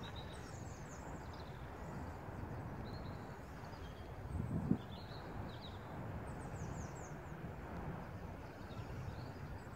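Outdoor background noise with small birds chirping now and then in short high calls, and a brief low rumble swelling up about four and a half seconds in.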